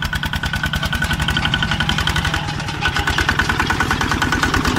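Engine of a small homemade mini tractor running steadily under load while it pulls a plough through the soil, a rapid, even chugging.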